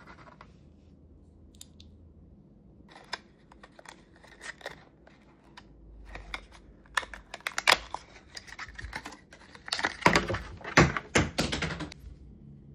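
Gift packaging being handled and opened: irregular clicks and crinkling crackles that grow denser, loudest in a dense flurry about ten seconds in, then stop shortly before the end.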